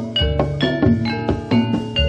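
Javanese gamelan music accompanying a jathilan dance: bronze metallophones struck in a steady run of ringing notes, about four to five a second, over low drum beats.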